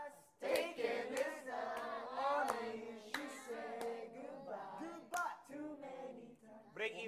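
A group of young people singing together a cappella, with several sharp hand claps among the singing.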